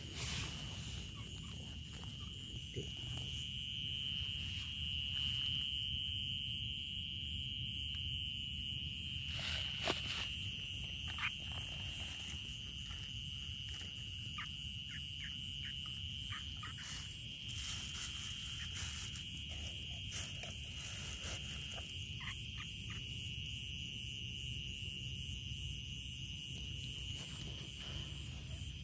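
Night insects, likely crickets, keeping up one steady high-pitched trill without a break. A few faint clicks and knocks come from handling near the middle.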